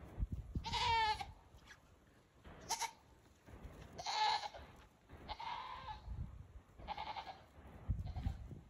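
A loose goat bleating four times, the first call long and quavering, the later ones shorter.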